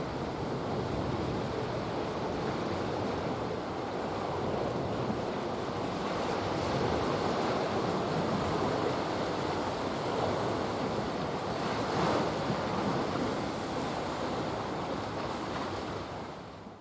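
Steady rushing of wind on the microphone over the wash of sea waves, with no distinct engine note; it fades out near the end.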